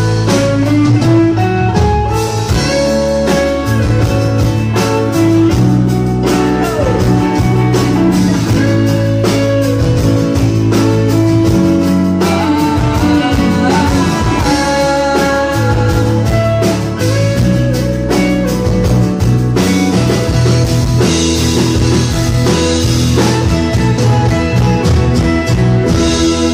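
Live rock band playing an instrumental break: a guitar lead line with bent notes over strummed acoustic guitar, bass and drums.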